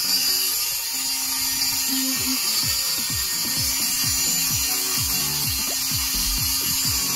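Homemade rotary tool's 555 high-speed DC motor running steadily with a high hiss, over background music.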